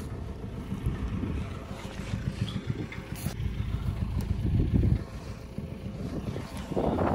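Vehicle engine running with a low, uneven rumble, with wind buffeting the microphone.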